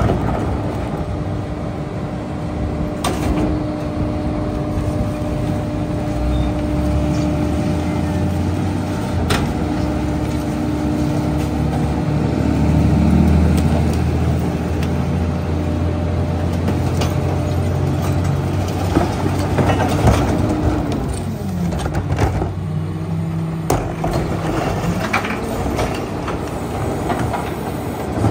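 Garbage truck engine running, rising to a higher, louder speed for about fifteen seconds while the New Way rear loader's hydraulic packer cycles, then falling back to idle with a dropping pitch. Sharp knocks of recycling carts and cardboard being tipped into the hopper come at intervals.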